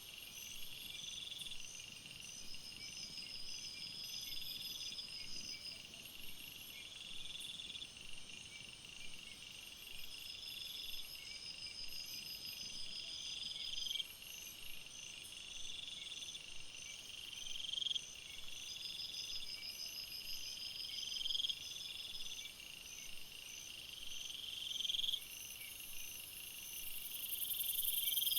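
Jungle insect chorus: a call swells over about a second and cuts off sharply, repeating every two to three seconds, over steady pulsed trills and regular high chirps. A loud, high-pitched buzzing comes in near the end.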